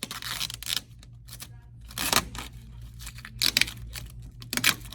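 Protective film liner being peeled off a clear plastic sneeze guard panel, giving a tearing sound in four separate spurts.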